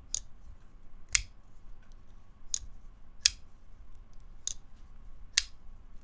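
Front-flipper pocket knife with a titanium liner lock and ceramic bearings being flicked open and closed repeatedly: six crisp, snappy clicks about a second apart as the blade snaps into lockup and shuts against its detent.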